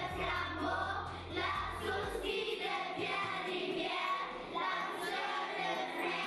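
Music with singing voices. A low steady bass note under it drops out about two seconds in.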